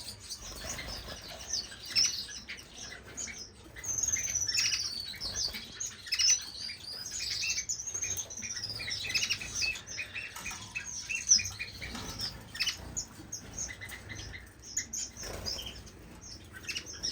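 Cage birds, canaries and finches, chirping and calling together without pause in many short high notes, with some longer sweeping song phrases and wings fluttering now and then.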